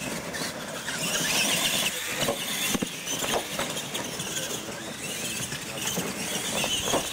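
Two electric RC monster trucks racing over dirt: motors whining as they speed up and ease off, with several knocks as the trucks bang over plastic toy cars and plywood ramps.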